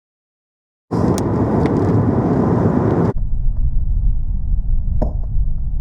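A car on the move: loud, low road-and-wind rumble that starts abruptly about a second in. About three seconds in it turns duller, with only the low rumble left.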